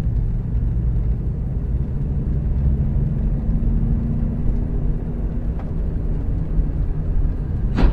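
Steady low rumble of a car's engine and tyres on the road, heard from inside the cabin through a dashcam microphone, with a sharp click near the end.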